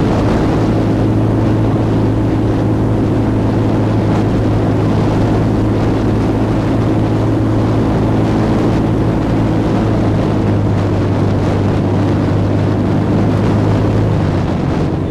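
Airboat's engine and large air propeller running steadily, a loud constant drone; the pitch eases slightly lower near the end.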